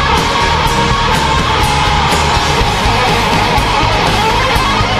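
Live rock band playing loud, an electric guitar holding a long, slightly bending lead line over bass and drums, with a cymbal struck about twice a second.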